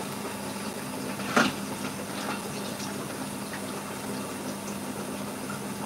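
Pressure cooker on the stove giving a steady hissing, bubbling noise, with one sharp clunk about a second and a half in as the pot is shifted on and off the heat.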